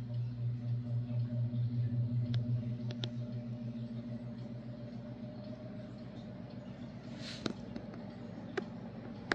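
Vintage Artic Aire model 2077 box fan starting up on low speed, blowing outward in reverse: a strong pulsing motor hum that eases off over the first few seconds and settles into a steady run, with a few faint clicks.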